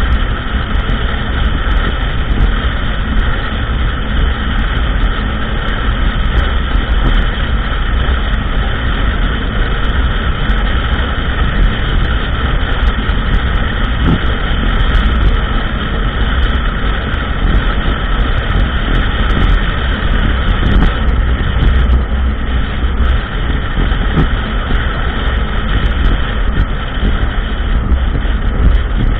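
ATV engine running steadily on a trail ride, with a heavy low rumble and scattered small ticks.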